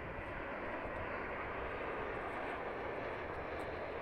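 Jet engines of a Jetstar Airbus A320-family airliner landing, heard as a steady rush with a faint high whine as it flies low over the runway just before touchdown.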